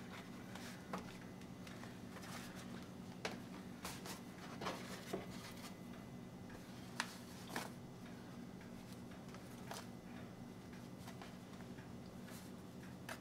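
Quiet handling sounds: soft rustles and a few light clicks and taps as a thin sheet of rolled pie-crust dough is lifted from a floured wooden board and laid over apples in an aluminium foil pan. A steady low hum runs underneath.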